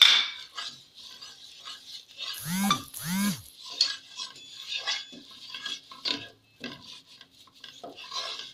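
A spoon stirring and scraping a thick flour-and-oil roux around a non-stick saucepan in short strokes about once or twice a second, with a knock against the pan at the start. Two short rising-and-falling squeaks come about two and a half seconds in.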